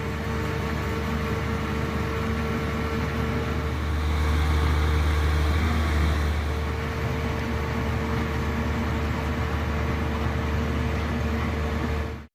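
Excavator's diesel engine running under load with a steady low drone, rising a little in the middle, then stopping abruptly near the end.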